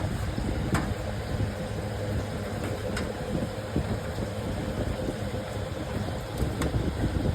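Steady low mechanical hum with a faint steady tone, broken by three light clicks.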